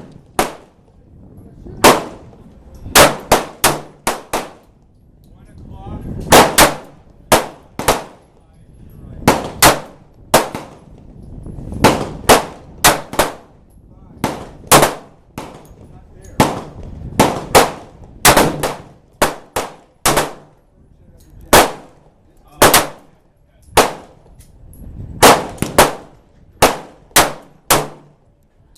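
A long, irregular series of gunshots on a shooting range, often fired in quick groups of three or four. Each shot is sharp and has a short ringing tail.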